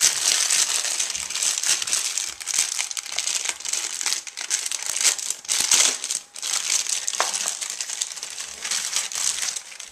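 Thin clear plastic packaging crinkling continuously as it is pulled open and unwrapped by hand, with a brief lull about six seconds in.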